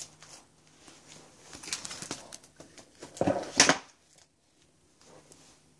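Plastic comic-book bags rustling and crinkling as a stack of bagged comics is handled and stood up. A loud rustle comes a little after three seconds in.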